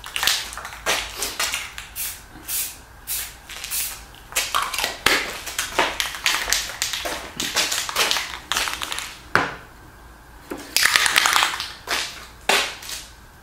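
Aerosol spray paint can spraying in many short, irregular spritzes, with a longer spray about eleven seconds in.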